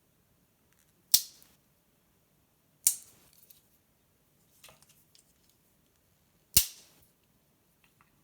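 Victorinox Swiss Army knife tools snapping on their backsprings: three sharp metal snaps a second or more apart, with a few faint clicks between the second and third.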